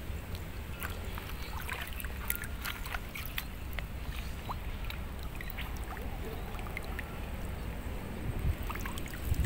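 Water sloshing around a person wading among reeds, with many small scattered clicks and splashes over a steady low rumble.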